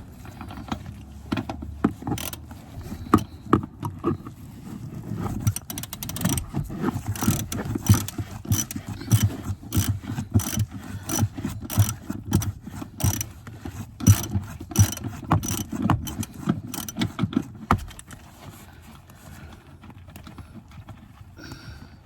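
Hand ratchet wrench clicking in rapid, irregular strokes with knocks of metal on metal as a seat mounting bolt is worked loose; the clicking stops about three-quarters of the way through.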